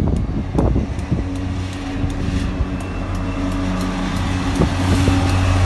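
Heavy diesel freight locomotive passing close by, its engine a steady low drone that grows louder as it draws level, over a run of sharp clicks from the wheels on the rails.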